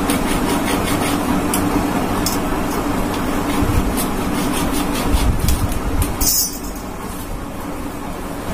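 A hacksaw blade cutting through a PVC pipe, over a steady low hum, with a short sharp hiss about six seconds in.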